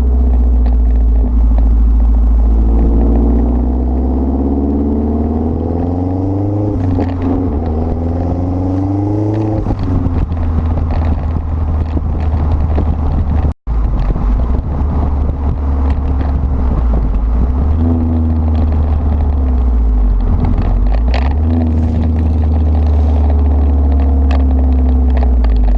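Exhaust of a 2011 Mazdaspeed 3's turbocharged 2.3-litre four-cylinder through a catless Magnaflow stainless exhaust, under acceleration with the engine note climbing steadily for several seconds. It breaks off suddenly about halfway through, then comes back running and rising more gently.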